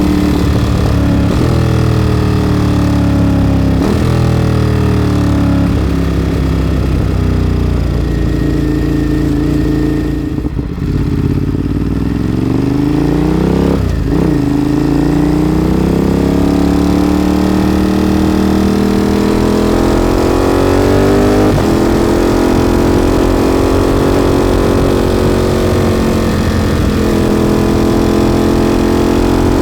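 Ducati motorcycle with a Termignoni exhaust under way, engine pitch rising as it pulls through the gears and dropping sharply at each shift. About ten seconds in it eases off, the pitch sinking and the level briefly dipping, before it accelerates hard again with two more upshifts.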